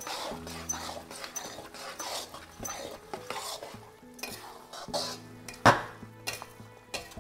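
A spoon scraping and stirring panjiri in a pan as ground nuts are added to the ghee-roasted flour, in a run of short strokes with one sharp knock of the spoon against the pan about three-quarters of the way through.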